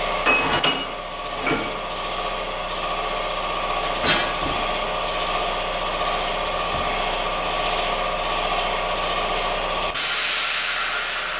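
Air compressor running, really loud, with a steady hum and a held whine. A few metal clanks come in the first couple of seconds and again about four seconds in, and near the end a loud hiss of compressed air starts suddenly.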